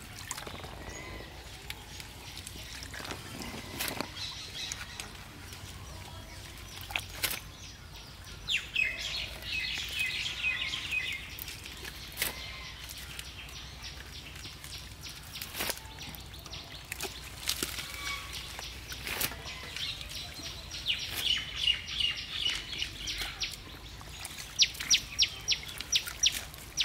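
Catfish writhing in shallow mud and water, with scattered sharp wet smacks as they flop against each other, while small birds chirp in short spells and give a quick run of ticking calls near the end.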